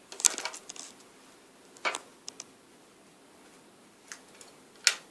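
A handful of sharp clicks and light knocks in a small quiet room: a cluster about a quarter second in, one near two seconds, and a loud single click near the end.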